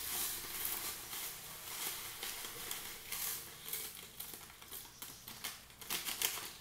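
Instant coffee granules pouring from a refill pouch into a stand mixer bowl: a dense, grainy patter of small grains landing, with the pouch rustling as it is shaken out, sharper near the end.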